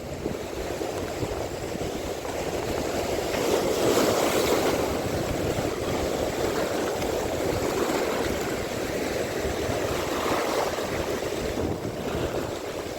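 Surf washing onto the shore with wind on the microphone: a steady rushing noise that swells about four seconds in.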